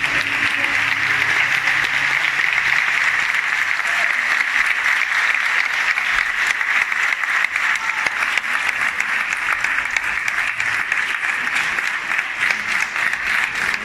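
A large theatre audience applauding, a dense, steady clapping that holds at one level. The last note of the music dies away about a second in.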